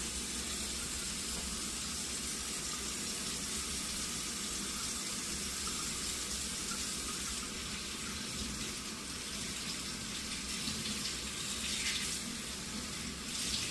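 Kitchen faucet running steadily into a sink while small hands are washed under the stream, with some uneven splashing near the end.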